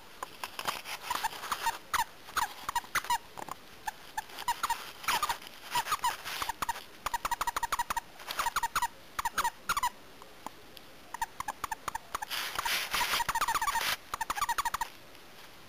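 A small dog chewing a squeaky plush toy, the squeaker giving quick runs of short, high squeaks with a short break about ten seconds in. About twelve seconds in the squeaks turn breathier and hissing for a couple of seconds.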